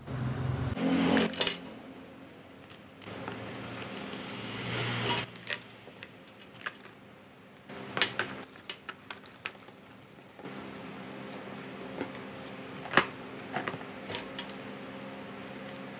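Panels of glued plastic drinking straws being handled and set against each other on a glass tabletop: rustling and a series of light clicks and taps. A steady low hum starts about two-thirds of the way through.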